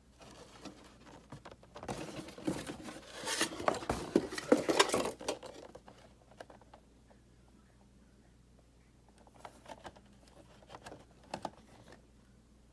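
Rustling and clattering of Funko Pop boxes and their packaging being handled, busiest in a burst from about two to five seconds in, then a few light taps and clicks near the end.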